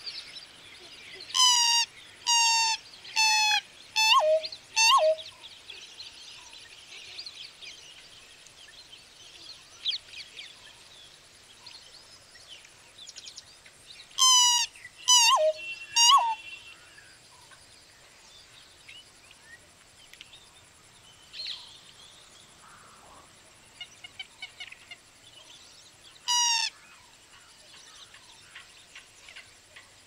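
Pheasant-tailed jacana calling: five short, loud calls in quick succession in the first few seconds, three more around the middle and a single one near the end, some of them dropping in pitch at their close. Fainter chirps sound between the calls.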